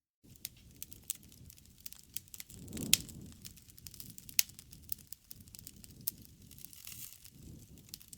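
Wood fire crackling, with many small irregular snaps and two sharp pops about three and four and a half seconds in, over the low rush of the flames.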